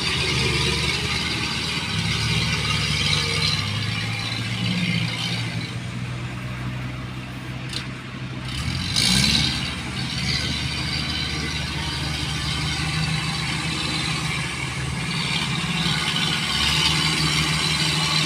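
Farm machinery engines running steadily in a rice field, with a brief louder rise in engine pitch about nine seconds in.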